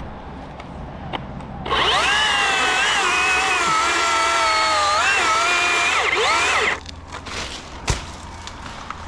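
Chainsaw running for about five seconds, its motor pitch dipping and recovering as it cuts into wood, then stopping abruptly. A sharp knock follows about a second later.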